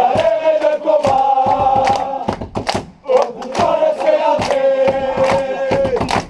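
A group of football players chanting together in a sung celebration chant, with hand-clapping. There is a short break about three seconds in before the singing picks up again.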